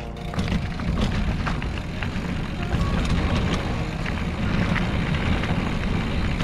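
Trek X-Caliber 8 hardtail mountain bike rolling over a rough dirt singletrack: a steady low rumble with many scattered clicks and rattles from the tyres and bike over the rocky ground.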